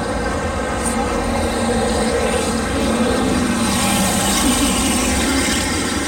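A steady engine drone, growing a little louder around the middle.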